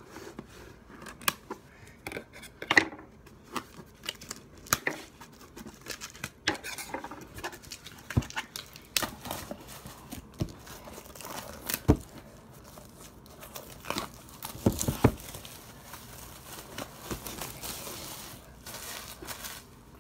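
Plastic shrink wrap being torn and peeled off a cardboard box: irregular crinkling and tearing with many sharp clicks.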